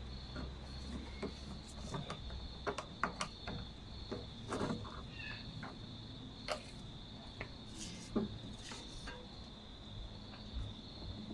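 Scattered light clicks and knocks of parts being handled and fitted onto a small lawnmower engine, with a steady high chirring of crickets.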